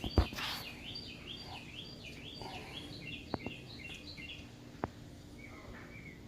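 A bird singing a quick run of repeated high chirps, fading to softer, lower notes near the end. Loudest is a thump right at the start, and there are a couple of sharp clicks.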